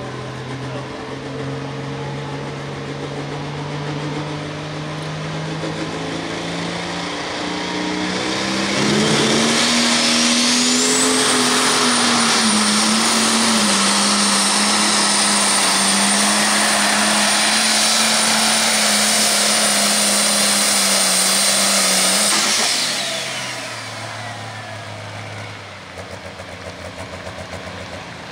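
Case IH MX255 pro stock pulling tractor's turbocharged diesel engine revving up on the sled. About nine seconds in it goes to full power with a rising high turbo whine that holds for around thirteen seconds. Near the end of the pull it lets off, and the whine and engine note fall away.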